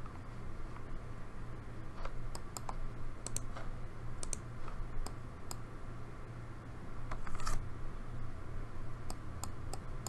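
Scattered sharp clicks of a computer mouse and keyboard, with a short rustle about seven and a half seconds in, over a steady low hum.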